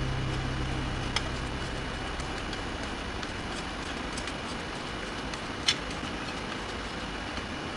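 Steady hiss with two faint, sharp clicks of a screwdriver tip against the steel pivot screw and clip of an antique Optimus stove's tank bracket, one about a second in and one near the end.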